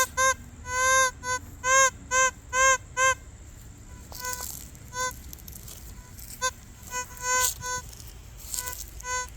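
Metal detector giving short, same-pitched target beeps as the search coil is swept over buried metal. A quick run of loud beeps comes in the first three seconds, then softer, more scattered beeps follow.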